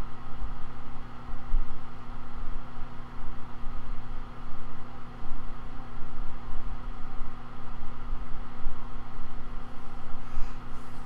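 Steady machine hum: several even low tones that do not change, over a fluttering low rumble.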